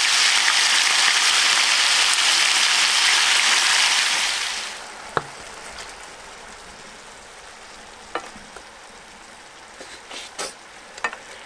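Pieces of raw chicken thigh sizzling loudly in a pan of smoking-hot oil. About four and a half seconds in, the sound drops to a quieter sizzle, with a few light clicks as a fork turns the pieces in the pan.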